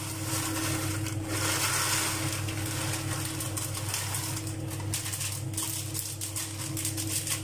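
Crispy shoestring potato sticks crackling and rustling as they are poured from a plastic bag into a hot frying pan of onions and shredded salt cod. A steady low hum runs underneath.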